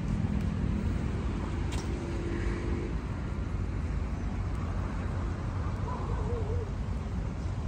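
Outdoor road-traffic ambience: a steady low rumble of passing cars, with a brief sharp click a little under two seconds in.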